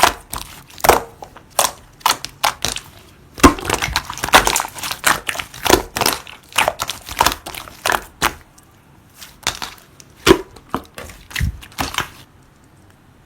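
White translucent slime being squeezed and pressed by hand, giving quick, irregular clicks and pops. The sounds stop shortly before the end.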